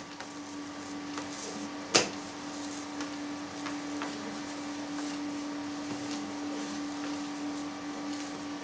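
Hands stretching and pressing flatbread dough on a countertop board, with faint handling ticks and a sharp knock about two seconds in, over a steady low hum.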